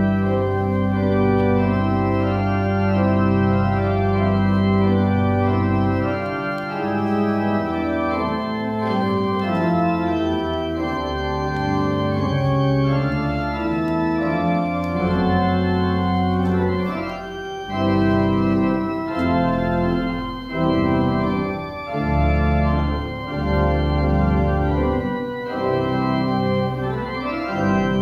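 Church organ playing slow sustained chords over deep held bass notes. The bass drops away about six seconds in, and in the second half the chords change more often and the deep notes come and go.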